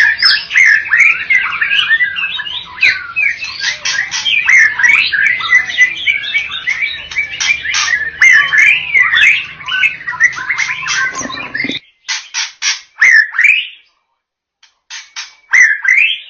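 White-rumped shama singing a rapid, continuous run of varied whistles, trills and sharp notes. About twelve seconds in, the song breaks off abruptly, and only a few short separate phrases follow.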